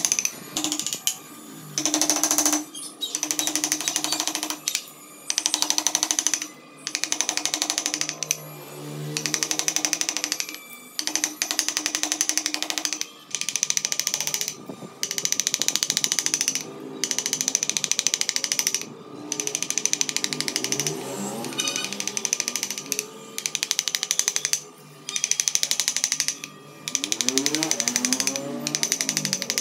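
Wooden mallet rapidly tapping a carving chisel into wood, in runs of a second or two broken by short pauses.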